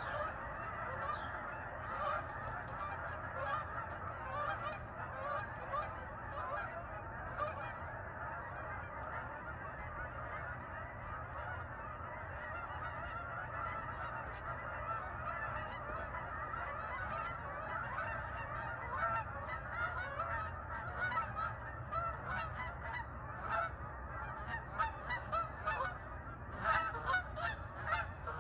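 A large flock of geese honking continuously, many calls overlapping into a steady clamour, with single honks standing out more sharply near the end.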